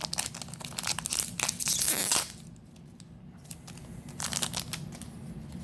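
A Magic: The Gathering booster pack's foil wrapper being torn open and crinkled: a dense crackling for about two seconds, then a short crinkle about four seconds in.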